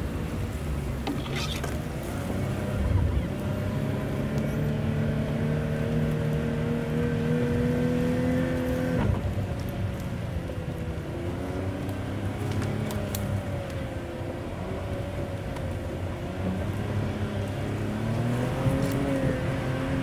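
Pickup truck engine running hard. The revs climb slowly for several seconds, drop abruptly about nine seconds in, then rise and fall repeatedly and climb again near the end.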